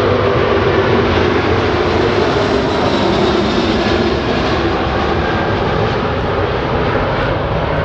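Four-engined Airbus A380 with Engine Alliance GP7200 turbofans at takeoff power, climbing out with the gear still down; a loud, steady jet roar with a low hum running through it.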